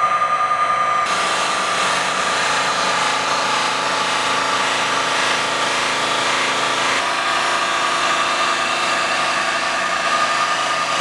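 CNC polishing machine running on a stainless steel vase: a steady motor whine with a hissing, abrasive rub of the polishing wheel on the metal, the hiss strengthening about a second in.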